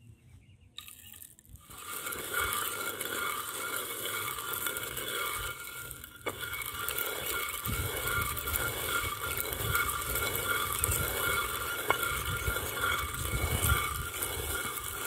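Hand-turned rotary stone quern grinding cardamom and cinnamon. The upper millstone rasps over the lower one as it is spun, making a steady rough grinding noise that pulses with each turn and starts about two seconds in.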